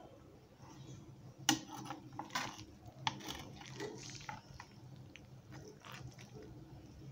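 Metal spatula scraping and tapping against a pan while gently turning cooked biryani rice from the bottom, with soft squishy sounds of the moist rice. The clicks come irregularly, the loudest about a second and a half in.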